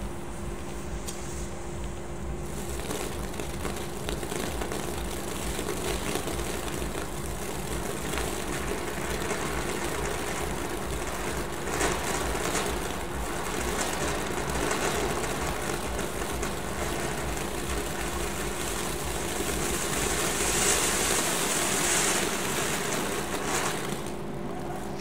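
Old multi-tube ground fountain firework spraying sparks with a steady hiss. It catches about two and a half seconds in, grows louder near the end, and cuts off about a second before the end. A steady low hum runs underneath throughout.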